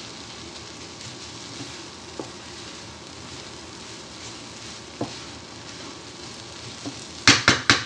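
Chopped onions, carrot and green pepper sizzling steadily as they fry in a non-stick frying pan, stirred with a wooden spatula that scrapes and knocks lightly now and then. Near the end come four loud sharp knocks in quick succession, the spatula striking the pan.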